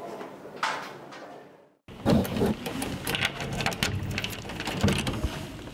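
A bunch of keys jingling and clicking in a door lock as a door is unlocked, starting abruptly after a moment of silence about two seconds in; before that, a low steady hum.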